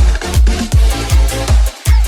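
Electronic dance music with a heavy kick drum thumping about two and a half times a second under sustained synth chords.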